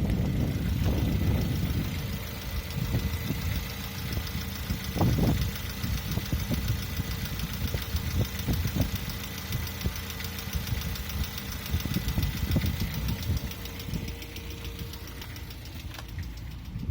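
Lada VAZ-21127 1.6-litre 16-valve four-cylinder engine idling with a fast, regular knocking; the owner does not know its cause.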